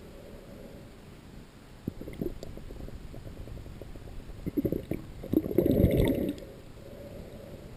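Muffled underwater gurgling and bubbling, heard through a submerged camera's waterproof housing, with scattered clicks. It swells to its loudest burst about five and a half seconds in, then settles back to a low wash.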